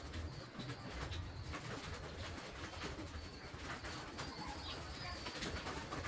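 A bird cooing repeatedly, with scattered light clicks and knocks.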